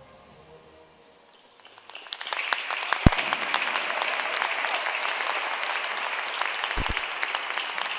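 Hand-clapping applause that breaks out about two seconds in, after a quiet moment as the music ends, and then keeps going steadily. A loud, sharp knock comes about three seconds in and a double one near the end.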